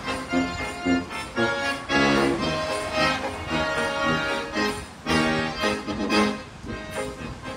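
Live instrumental Oktoberfest band music from accordion, tuba and banjo playing together, the accordion prominent over the tuba's low notes.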